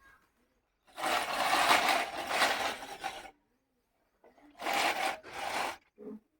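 Manual push grass-cutting machine being pushed through grass, its spinning blades whirring and snipping: one long pass of about two seconds, then two short pushes a little later.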